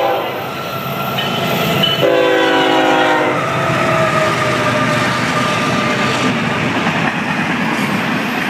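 Freight locomotive horn sounding a short blast, then a longer one about two seconds in, as the train crosses the road crossing. The steady rumble and wheel clatter of the passing train follow.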